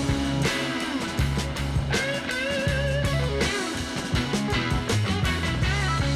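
Background rock music with a steady drum beat, bass, and wavering electric guitar lines.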